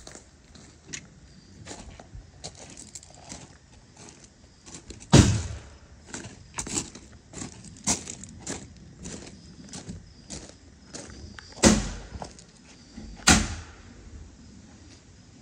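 Irregular knocks and clunks of hand construction work on a wooden cabin, with three sharp bangs, about five, eleven and a half and thirteen seconds in.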